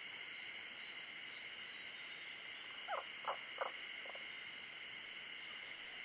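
Forest pond wildlife: a steady high-pitched animal chorus, with a run of three quick falling calls and a fainter fourth about three seconds in.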